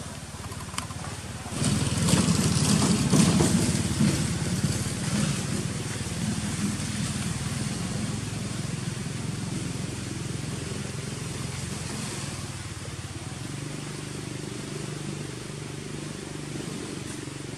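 An engine running, loud from about a second and a half in, then easing down to a steady low hum.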